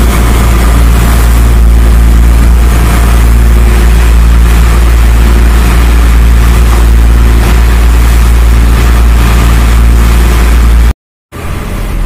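Motorized bangka's engine droning steadily while the boat is under way, heard inside the open-sided cabin with a steady rush of wind and water over it. The sound cuts off abruptly about a second before the end and comes back quieter.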